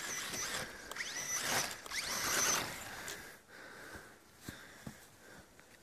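Electric motor of an RC10B radio-controlled buggy on sand paddle tyres whining as the car works to climb a sand slope. The whine is loudest and rises in pitch around one and a half to two and a half seconds in, with the rush of the tyres churning sand, then fades.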